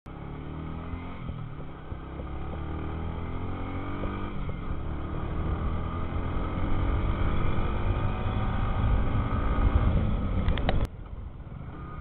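Yamaha motorcycle engine running as the bike is ridden, its pitch climbing again and again as it accelerates, with wind noise on the microphone. It grows louder through most of the clip, then drops suddenly near the end.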